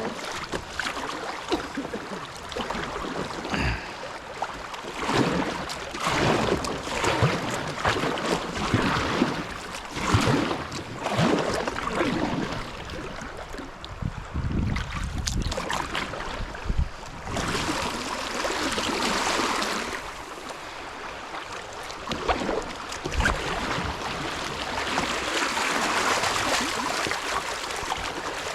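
Kayak paddle strokes splashing about once a second over rushing river water. The water grows into a steadier rush in the second half.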